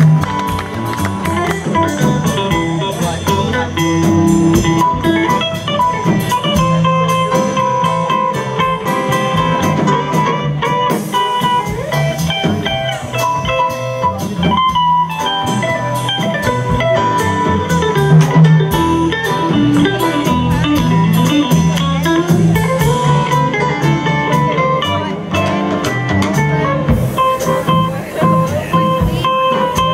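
Live jazz band playing, with an electric guitar out front over upright bass and drums.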